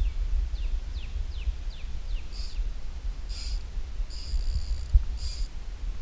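A bird calling with a quick run of about six downward-sliding high chirps, then several short high buzzy bursts, over a steady low rumble on the microphone with one sharp thump just before the end.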